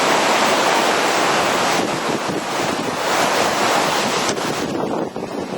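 Torrential rain pouring down in a dense, steady hiss that thins out about four seconds in.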